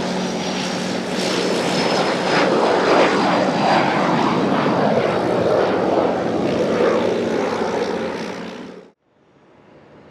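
Gulfstream G150 business jet's turbofans running loud as it passes, a steady rushing roar with a high whine that slowly drops in pitch. The roar swells a couple of seconds in, then cuts off abruptly about nine seconds in, leaving only quiet background noise.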